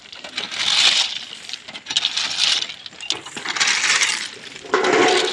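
Crushed-stone railway ballast being dragged up the track shoulder with a pole-pulled scraper, the stones clattering and clinking with each pull, about one pull every second and a half.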